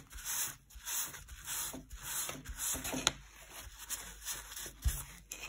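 Paper towel rubbing over a laser-etched MDF brick panel in short, irregular scrubbing strokes, wiping excess filler off the surface. A couple of light knocks come about three seconds in and near the end.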